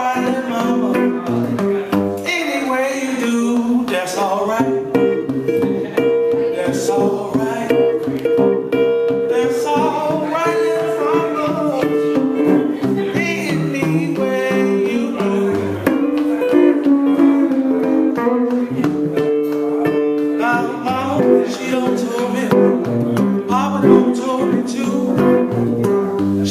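Solo blues guitar playing, an instrumental passage with notes that bend up and down in pitch.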